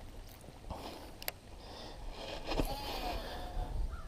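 Faint outdoor background with a low wind rumble, a single sharp click about a second in, and a faint wavering whistle in the second half.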